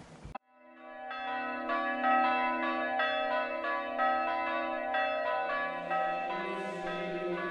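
Church bells pealing, a fast even run of about three strikes a second, their tones overlapping and ringing on. They come in about half a second in, after a brief silence.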